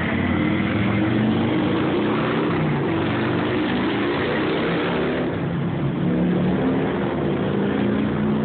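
Road traffic, with a vehicle engine running and picking up speed, its pitch slowly rising and falling over a steady rush of street noise.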